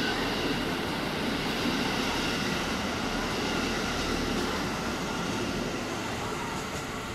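KiHa 85 series diesel railcar passing slowly alongside the platform, its Cummins diesel engines running with several steady tones over the rolling noise. The sound eases slightly near the end.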